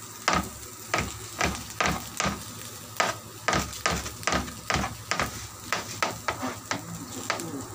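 Knife chopping tomato on a plastic cutting board, sharp knocks about two a second at an uneven pace, over the steady sizzle of vegetables frying in a wok.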